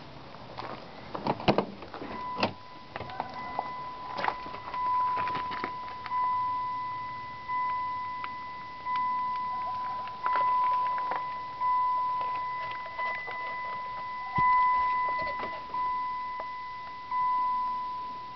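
A few clicks and knocks, then a single steady electronic tone that sounds in repeating pulses about once every second and a half, each pulse starting sharply and fading away.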